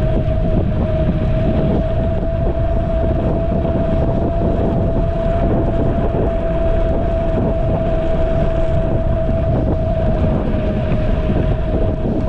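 Wind buffeting the camera's microphone while riding a Caroma P5 electric scooter, over one steady whine from its electric motor holding a constant pitch at cruising speed.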